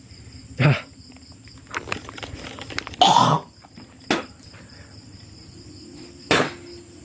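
A man coughing and spitting in four short bursts, the longest about three seconds in, after a mosquito has flown into his mouth. A steady high chirring of crickets runs underneath.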